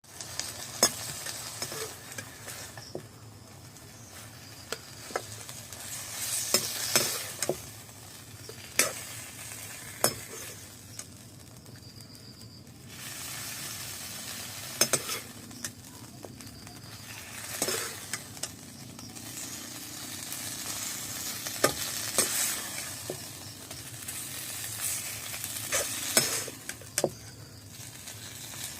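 Chicken sizzling as it fries in a pan, with sharp clicks and scrapes of a utensil stirring it. The sizzle swells and fades.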